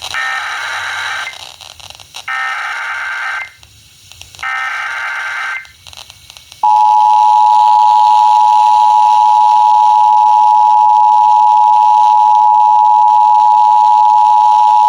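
Emergency Alert System broadcast over FM radio: three short bursts of warbling digital SAME header data, then, about six and a half seconds in, the EAS attention signal, two steady tones sounding together for about eight seconds.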